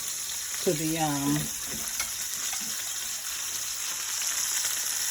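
Floured red snapper frying in hot oil, a steady crackling sizzle.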